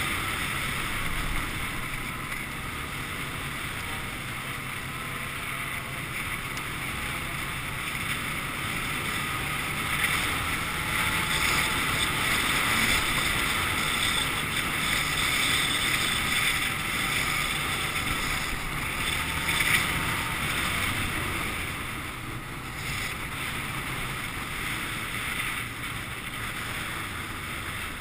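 A quad (ATV) engine running while riding over a gravel track, mixed with wind noise on the microphone. It gets louder for about ten seconds in the middle.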